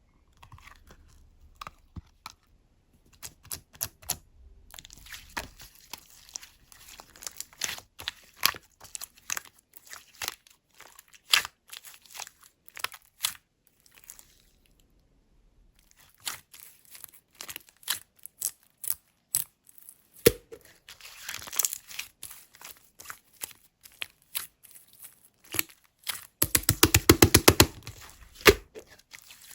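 Clay-mixed slime being squished, poked and stretched by hand, giving many small wet clicks and crackles. They pause briefly about halfway, and near the end there is a fast run of squishing clicks.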